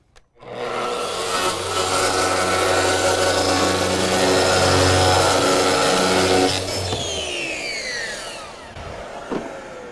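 Makita SP6000 corded track saw with a Hardie fiber-cement blade starting up and cutting steadily through fiber-cement Hardie panel, its Festool CT 26 E HEPA dust extractor running on the hose. About six and a half seconds in, the trigger is released and the motor winds down in a falling whine.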